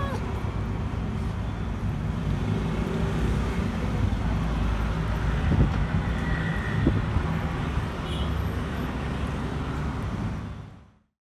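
Steady low rumble of vehicle engine and road traffic noise, with a couple of brief knocks around the middle, fading out near the end.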